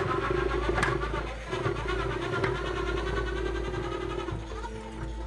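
Corded electric drill driving a stainless-steel honey extractor, the motor whirring steadily as the frames spin in the drum, with a couple of sharp clicks in the first second. The drill sound drops away near the end.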